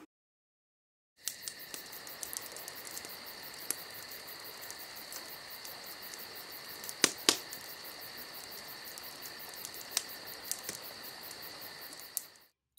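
A steady chorus of crickets trilling, a fast pulsing chirp on two high pitches, with a few sharp clicks around the middle. It starts about a second in and cuts off just before the end.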